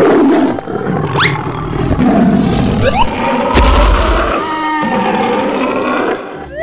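Tiger roaring and growling throughout, cut with a few quick rising whistle-like swoosh effects and a deep boom a little past the middle.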